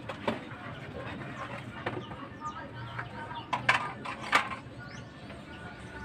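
A few sharp clicks and knocks of metal scissors and a wooden board being handled and set down on a plastic stool, the loudest a pair about three and a half seconds in. Birds chirp faintly in the background.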